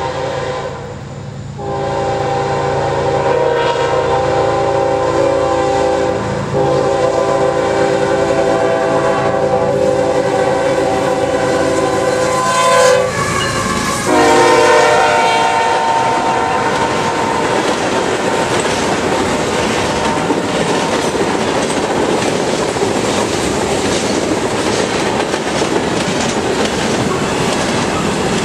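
Norfolk Southern freight train: the locomotive's air horn blows in long blasts with short breaks. Its pitch drops as the locomotive passes, about halfway through, and it stops a few seconds later. The freight cars then roll past with a steady rumble and the clickety-clack of wheels over rail joints.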